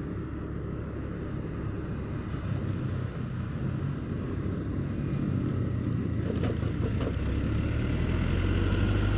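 Steady engine hum and road noise from the recording vehicle travelling in moderate traffic: a low drone that grows gradually louder.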